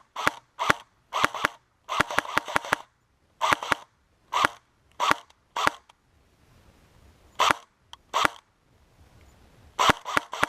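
Airsoft guns firing: sharp cracking shots, some single and some in short rapid bursts, with a pause of over a second about two-thirds of the way in and a quick burst near the end.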